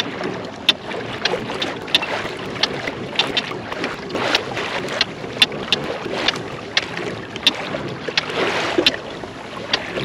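Fishing kayak moving across open water: water sloshing and lapping against the plastic hull, with wind on the microphone. Frequent irregular sharp clicks and knocks run through it.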